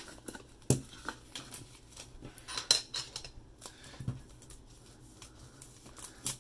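Cardboard cube packaging being handled and opened with a small knife: scattered sharp taps, clicks and scrapes.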